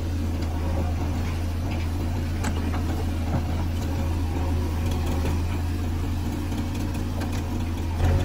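Steady diesel engine drone of a JCB 3DX Eco backhoe loader working its digging arm, with a few faint knocks. The engine sound gets louder near the end.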